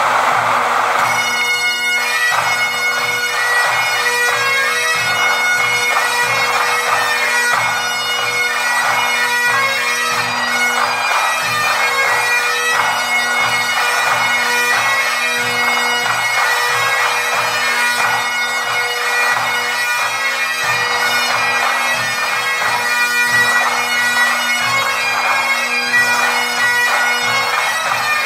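Great Highland bagpipes of a military pipe band playing a tune over their steady drones, striking up right at the start.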